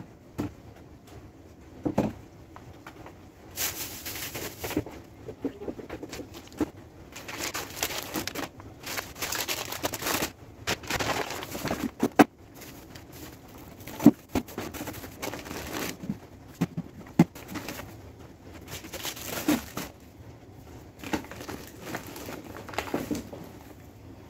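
Hard plastic storage containers knocking and clicking as they are set down in a drawer, with bursts of plastic food packets crinkling and rustling as they are packed in beside them.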